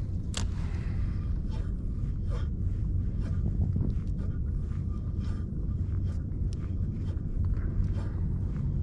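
A steady low rumble on the camera microphone, with scattered light clicks and ticks from a fishing rod and reel being worked during a lure retrieve; one sharper click comes just after the start.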